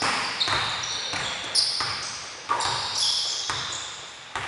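Basketball bouncing and shoes squeaking on a hardwood gym floor during play. There are five or so sharp thuds, each echoing in the large hall, and high squeaks come and go.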